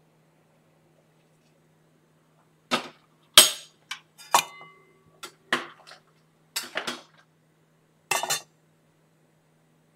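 A run of about eight sharp metallic clanks and knocks of metal cookware, one ringing briefly, starting about three seconds in; a faint steady low hum lies underneath.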